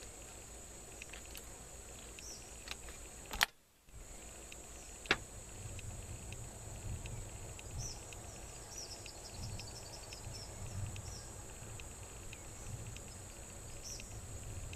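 Insects trill steadily in the background. A sharp clack comes about three and a half seconds in and a smaller click near five seconds, from the single-shot Martini rimfire rifle's action being worked to reload between shots.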